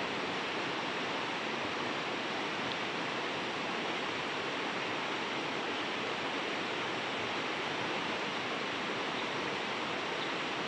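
A fast-flowing river rushing steadily over shallow rapids.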